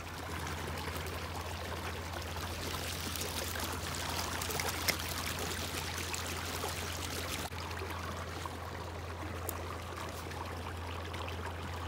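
Steady running, trickling water over a steady low hum, the hiss thinning a little about seven seconds in.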